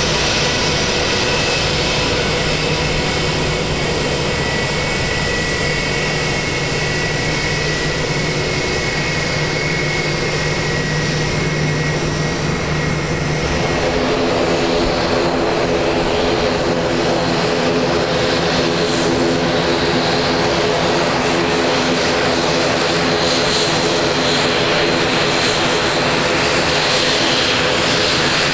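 Jet airliner engines running steadily at high power on the runway, with a high whine over a low hum. About halfway through, the sound cuts to the steady multi-tone drone of a turboprop's propellers as an ATR turboprop taxis close by.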